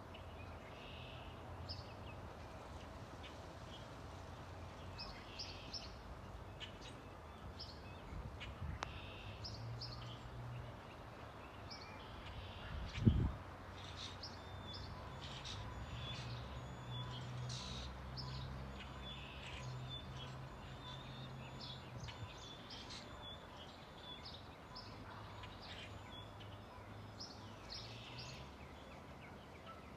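Small birds chirping in short, scattered calls over a faint low rumble from the jet airliner high overhead. A single dull thump about thirteen seconds in.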